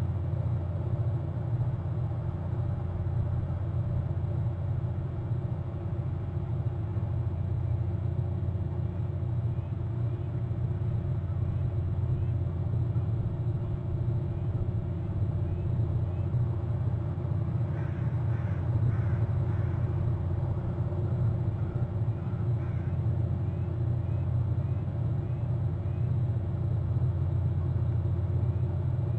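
A steady low rumble with a constant hum runs throughout. About two-thirds of the way in, a bird calls several times in a short series.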